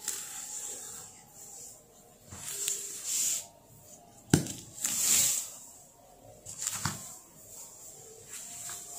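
A spoon stirring and folding wet cake batter into flour in a bowl: a series of soft scraping swishes, with one sharp knock of the spoon against the bowl about four seconds in.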